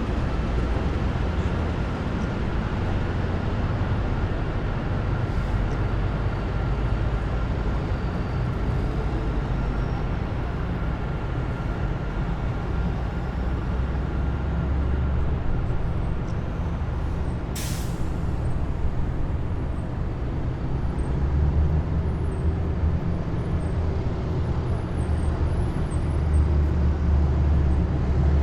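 A column of heavy military vehicles driving past, their diesel engines making a deep, steady rumble that swells again near the end. A little past halfway comes one short, sharp hiss of an air brake.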